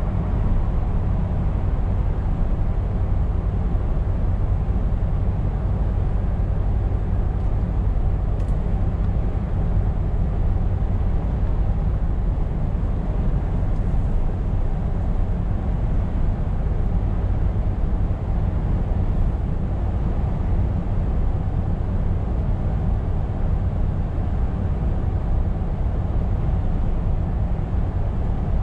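Scania R520 truck on the move at a steady pace: an even low engine drone mixed with road noise, holding level without revving up or down.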